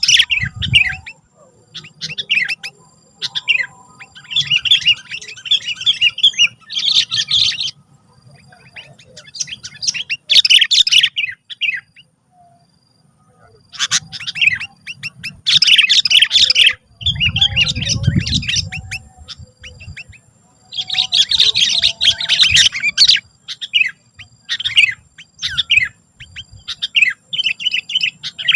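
Sooty-headed bulbul (kutilang) singing hard in repeated bursts of rapid chirpy phrases, with short pauses between them. A brief low rumble comes about two-thirds of the way through.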